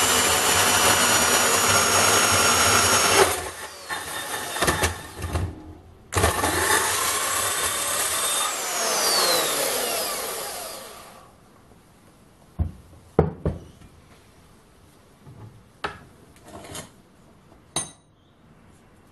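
VEVOR 1100 W variable-speed portable bandsaw running through a square metal tube clamped in a vise, with a steady whine. It stops about three seconds in, starts again about six seconds in, and its pitch falls as it winds down between about nine and eleven seconds. Then several sharp metal clinks from the cut tube being handled in the vise.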